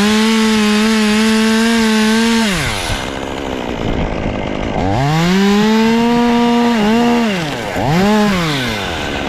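Chainsaw revved to full throttle and held steady for about two and a half seconds as it cuts through a tree limb, then dropping back to idle. It revs up again for about two seconds about five seconds in, and once more briefly near the end.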